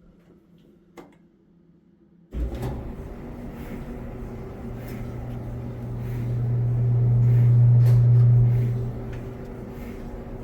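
A click, then a Samsung front-load dryer starting up about two seconds in, its motor and drum running steadily on freshly replaced drum support wheels. A low hum swells and eases off again near the end.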